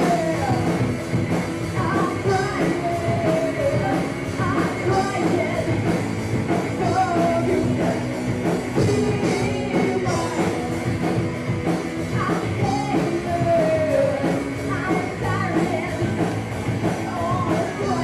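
A rock band playing live, with a woman singing lead into a microphone over electric guitar.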